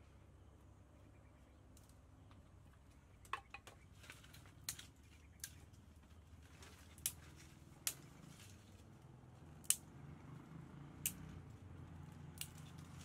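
Dry twigs snapped by hand, a sharp crack every second or so, about ten in all, starting a few seconds in, over a faint low hum.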